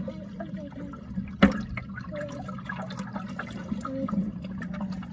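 Shallow river water gurgling and lapping around a viewing bucket held in the current. A single sharp knock comes about a second and a half in.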